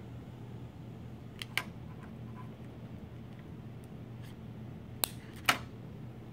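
A few sharp clicks of wiring connectors being handled and plugged in on a proton pack controller board, two about a second and a half in and two more near the end, over a low steady hum.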